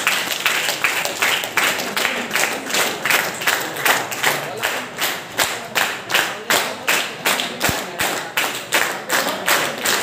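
A small group clapping together in a steady rhythm, about two or three claps a second.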